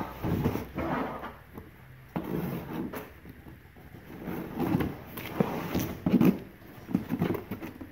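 A cardboard box being handled on a plastic folding table: set down and slid into place with scrapes and knocks, then packing tape pulled off its top, with cardboard rustling.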